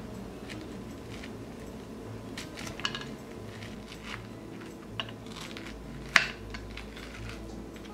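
Seeds and stringy pulp being scraped and plucked out of a halved kabocha squash with a wooden spoon and fingers: soft wet scrapes and scattered clicks, the sharpest about six seconds in.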